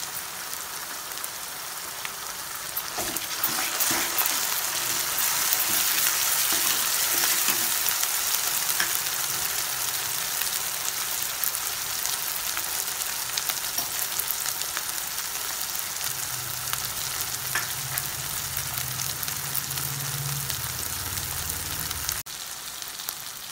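Chopped onions and cashew-onion paste sizzling and crackling in hot oil in a kadai, stirred with a flat metal spatula that scrapes and clicks against the pan. The sizzle swells a few seconds in and then settles.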